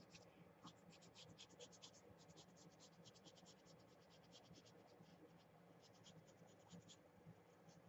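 Faint, quick scratching strokes of a copper marker tip rubbed along the edge of a paper page. The strokes come in fast runs, pause briefly past the middle and stop near the end.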